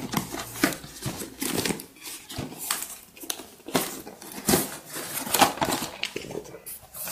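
Paper and cardboard packaging rustling and scraping as a cardboard toy box is slid out of it, with irregular sharp crackles throughout.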